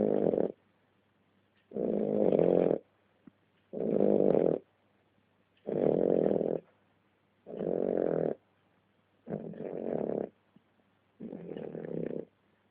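A dog snoring, one snore about every two seconds, each lasting just under a second.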